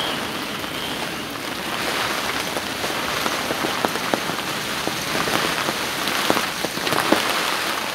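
Heavy rain pouring down onto a moored sailing yacht and the marina water: a steady hiss with many sharp ticks of drops striking close by.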